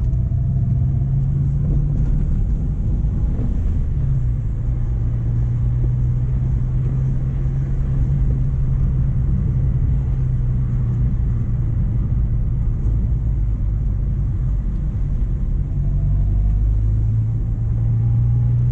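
Mk1 Renault Clio's engine running steadily with a low hum; its note drops about four seconds in and climbs again near the end.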